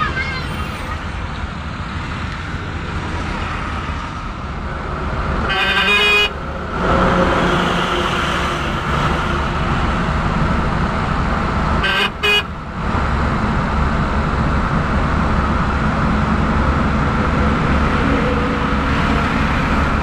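Steady engine and road rumble inside a moving vehicle's cab, with a vehicle horn honking about six seconds in and again briefly about twelve seconds in.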